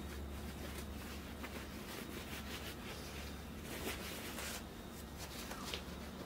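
Paper towel rustling and rubbing in the hand, in a few short bursts with the longest about four seconds in, over a steady low hum.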